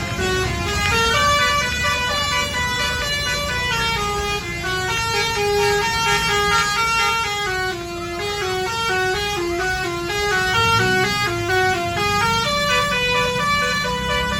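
Bus's 'telolet basuri' multi-tone horn playing a fast tune of short stepped notes, over the low rumble of the bus engine.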